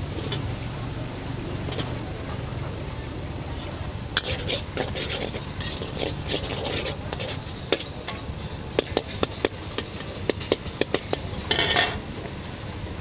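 Flat rice noodles sizzling in a wok while a metal spatula stirs and scrapes through them, with a quick run of sharp clanks of the spatula against the wok in the second half.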